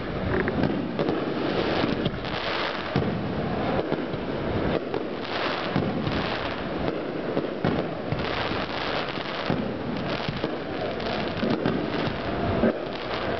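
Fireworks display: aerial shells and low-level effects bursting one after another with crackling, without a break.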